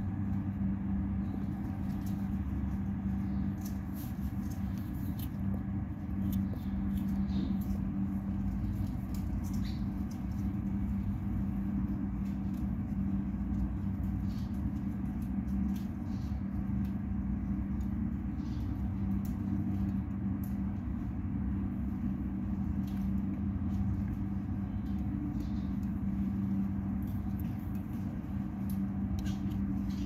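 Steady low mechanical hum with a rumble beneath it, with faint short high ticks scattered through it.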